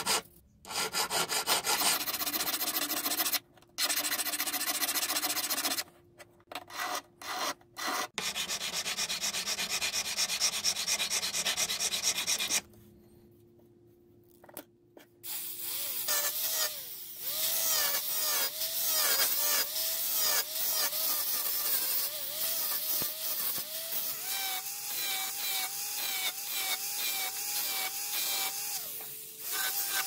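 Scratchy abrasive sanding of a silver and blackwood pencil part, in rapid back-and-forth strokes with short breaks. After a brief lull about halfway through, a small rotary tool with a sanding drum runs steadily, its pitch wavering up and down as the drum is pressed onto the silver.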